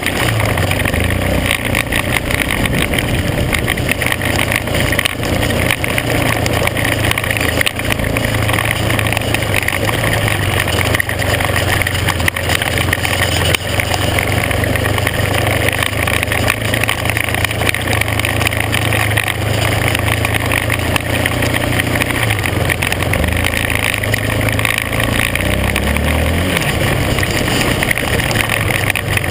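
Vehicle engine running under way on a gravel dirt road, its pitch rising and falling with the throttle, most clearly about three-quarters of the way through. A steady rush of road and wind noise runs under it.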